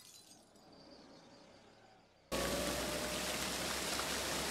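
Film soundtrack of heavy rain: a faint fading hiss, then about two seconds in a steady, even rush of rain starts suddenly.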